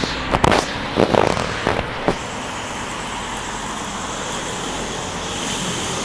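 Strong storm wind rushing steadily, with several sharp bangs in the first two seconds.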